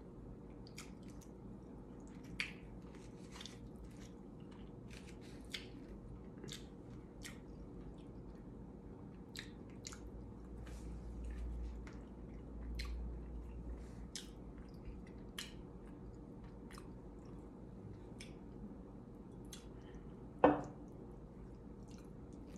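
Close-up chewing of chicken and rice, with scattered wet mouth clicks and smacks. One short, louder thump comes near the end.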